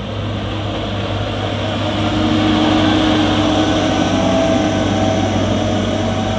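Cat M314 wheeled excavator's diesel engine running steadily, with a whine over the engine note. It grows louder about two seconds in as the machine works close by.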